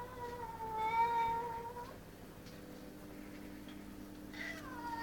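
Domestic cat yowling: one long, drawn-out yowl that stops about two seconds in, then a second yowl starting near the end that falls in pitch. A territorial yowl at an intruder.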